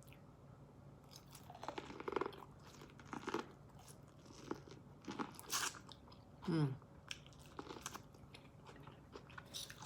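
Close-up eating sounds: a person biting and chewing corn on the cob, with scattered crunchy bites and wet chewing, and a short falling "mm" hum about two-thirds of the way through.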